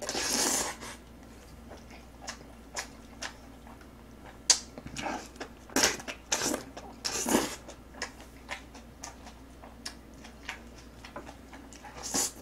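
A person slurping and chewing jjapagetti black-bean instant noodles: longer slurps near the start and again about five to seven and a half seconds in, with many short wet chewing smacks between them.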